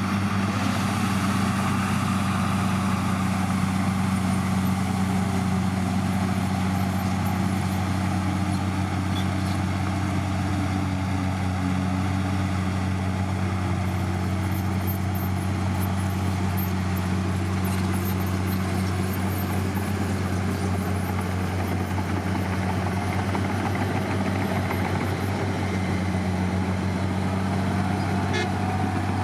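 Heavy diesel engine of earthmoving equipment running steadily with a constant low drone.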